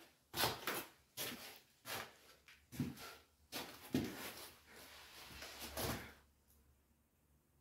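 Handling noises: a string of short knocks and scrapes, roughly a dozen over about six seconds, as someone moves around an old milling machine and handles it while getting it ready to plug in.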